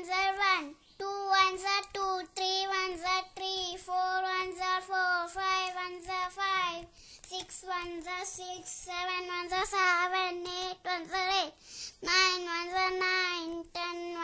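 A child's voice chanting the one-times table in a steady sing-song tune, phrase after phrase, with short breaks between phrases.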